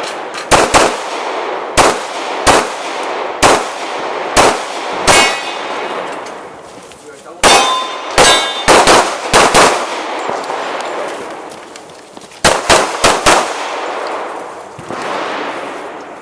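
Pistol shots fired in three quick strings with short pauses between, each shot echoing. Steel targets ring with a metallic ding when hit.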